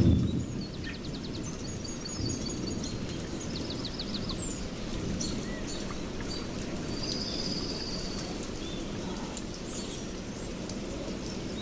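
Birds chirping and trilling again and again over a steady low rushing noise, with a brief loud low rumble at the very start.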